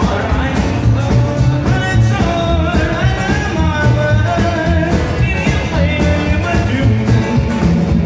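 Live band playing rock-and-roll with a steady beat: electric guitar, acoustic guitar, upright bass and drums.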